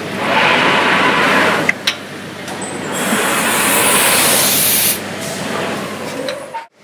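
Glass-processing machinery running, with two long hissing bursts, the second brighter and longer, and a few sharp clicks between them. The sound cuts off abruptly near the end.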